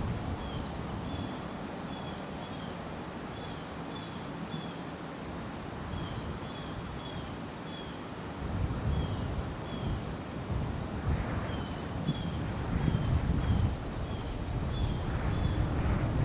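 Wind blowing over the microphone in gusts, stronger from about halfway through. A short, high chirp repeats about twice a second throughout.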